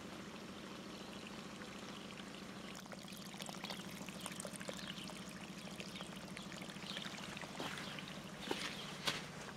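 Storm runoff water trickling and pouring along a muddy channel in the soil, a busy crackle of small splashes that grows louder about halfway through. A steady low hum runs underneath, and there are a couple of sharper knocks near the end.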